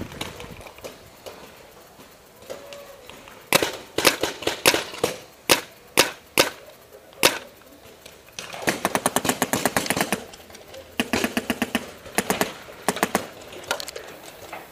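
Paintball marker firing close by: a run of single shots about a quarter of the way in, then two rapid strings of shots in the second half.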